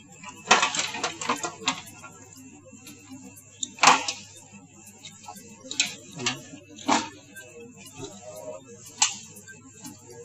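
Metal clicks and knocks of tools and parts as the compressor of a water dispenser is unbolted from its four mounting nuts and taken out: a quick run of clicks about half a second in, one loud knock about four seconds in, then a few scattered clicks.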